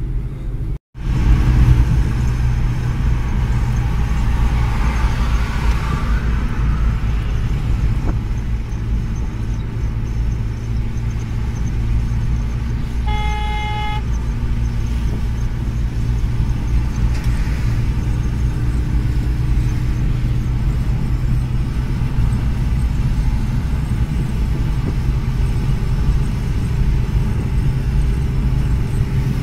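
Steady engine and road rumble inside a moving car's cabin, with a vehicle horn sounding once for about a second roughly halfway through.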